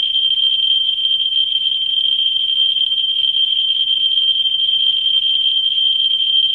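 Ludlum Model 3 survey meter's audio speaker, fed by a 44-9 pancake Geiger probe held about an inch from uranium ore (torbernite with kasolite), its counts run together into a steady high-pitched tone. This is the sign of a very high count rate, about 220,000 counts per minute.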